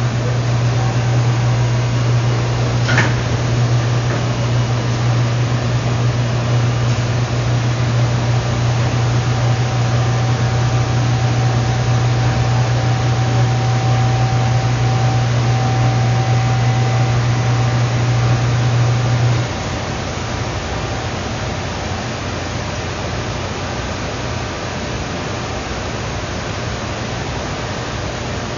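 Steady low electrical hum from a running appliance, over a constant hiss. The hum cuts off about two-thirds of the way through, leaving only the hiss; a single sharp click comes about three seconds in.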